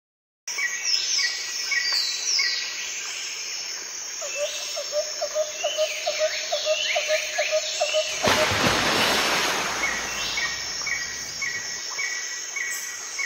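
Birds chirping and calling, starting about half a second in: repeated short falling whistles and a steady string of quick chirps. About eight seconds in, a rush of noise lasts for about two seconds.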